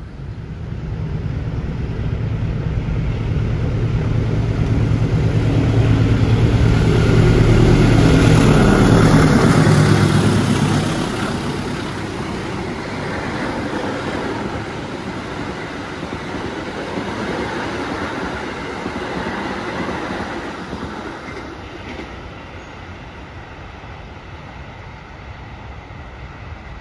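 Locomotive-hauled passenger train passing at speed through a station. The low diesel engine drone builds, then drops in pitch as the locomotive goes by about ten seconds in. The carriages keep rolling past with a steady rumble that slowly fades.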